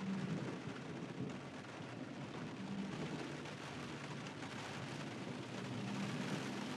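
Car driving in rain: a steady hiss of rain and wet road over a low rumble of engine and tyres.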